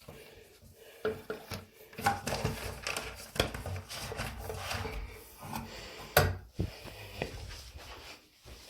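Irregular knocks, scrapes and rubbing of objects being handled, with the sharpest knock about six seconds in.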